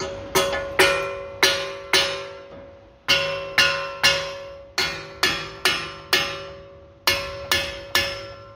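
Hammer blows on the front wheel hub's bearing bolts, each strike ringing like metal and dying away: about sixteen strikes at roughly two a second, with a short pause about two and a half seconds in. The blows are to shock loose bolts that are seized in the hub.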